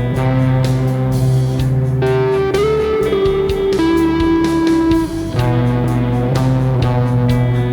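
Electric guitar played through effects pedals, improvising lead lines over an ambient rock backing track of drums and bass. Midway it holds long sustained notes, with a short bend up into the first of them.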